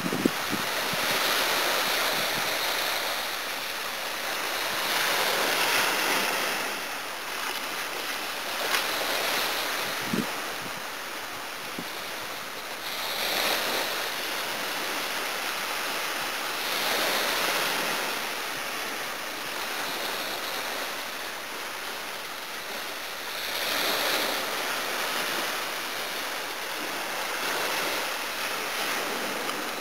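Small sea waves breaking on the beach, the surf swelling and fading every few seconds.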